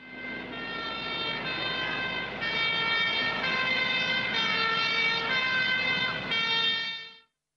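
Sustained electronic tones sounding several pitches at once over a hiss, shifting to new pitches every second or two, like a warning sting. It starts suddenly and cuts off about seven seconds in.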